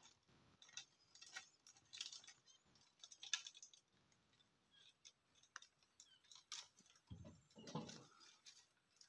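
Near silence broken by scattered faint clicks and small rustles, with a slightly fuller soft rustle about seven seconds in.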